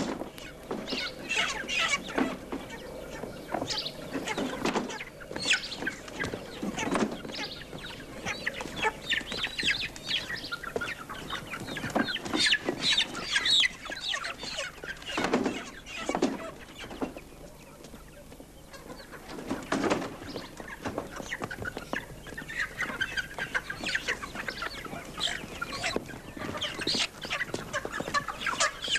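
Many crated chickens clucking and squawking in a dense, overlapping racket, easing briefly a little past halfway.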